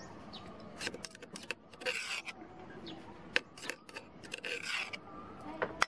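Dry chili mixture being scraped by hand out of an enamel bowl into a clay mortar: dry scraping and rustling with many small clicks, with longer scrapes about two seconds in and again past the middle.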